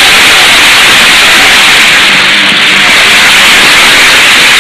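A hall audience applauding, a dense, even clatter heard through the hiss of an old 1941 newsreel sound recording.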